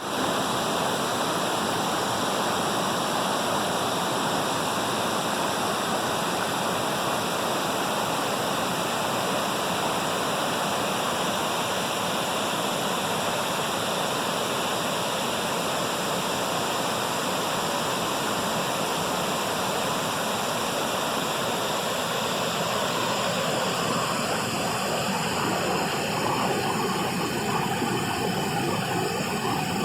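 Waterfall: a steady rush of falling, splashing water.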